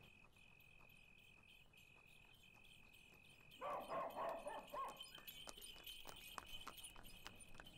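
A cricket trills steadily in the background, and about three and a half seconds in a dog barks several times in the distance. Faint footsteps click afterwards.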